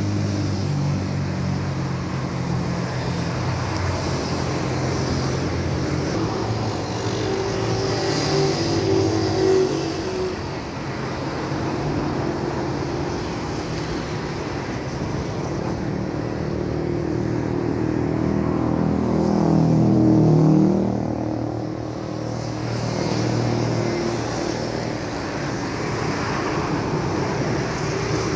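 A motor vehicle's engine running steadily. About twenty seconds in it grows loudest while its pitch dips and rises again.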